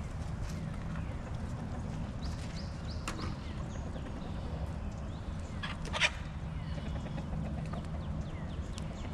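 Backyard hens clucking as they are fed, scattered short calls over a steady low rumble, with one sharper, louder sound about six seconds in.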